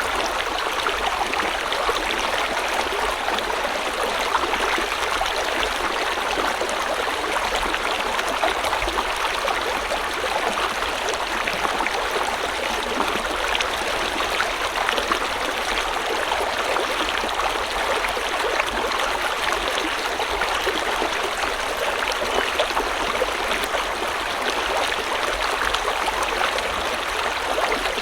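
River water flowing steadily over stones, a constant rushing with fine splashing and gurgling.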